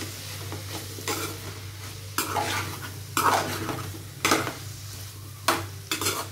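A metal spoon stirring and scraping through a tomato and raw-banana curry in a metal pot on the heat, a scrape about once a second, over a low sizzle.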